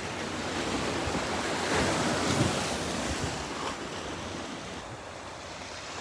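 Mediterranean sea waves washing on the shore, a steady surf hiss that swells about two seconds in and then eases off.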